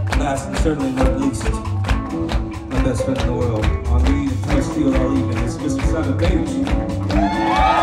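Live rock band playing: a drum kit keeps a steady beat under electric guitar, bass and keyboard. Near the end, long wavering lead notes come in over the band.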